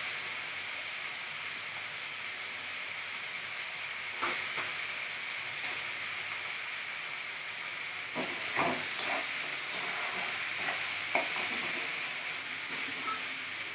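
Vegetables with freshly added chopped tomato frying in oil in a metal karai on a gas flame, a steady sizzle. A metal spatula clinks and scrapes against the pan once about four seconds in and several times between about eight and eleven seconds.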